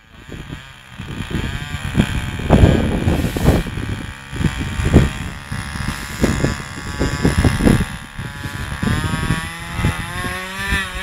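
The small combustion engine of a radio-controlled model airplane runs on the ground, its pitch rising and falling with the throttle. Irregular low rumbling surges run through it. Near the end the engine steadies and begins to climb in pitch.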